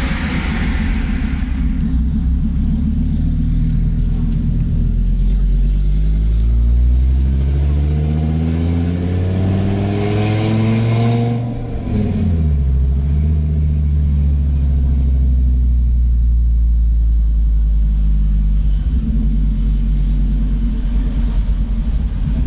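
Fiat Marea HLX 2.4's five-cylinder engine running loud with no exhaust fitted. It idles, is revved up steadily over several seconds, is let go about eleven seconds in with a sharp fall in pitch, and settles back to idle.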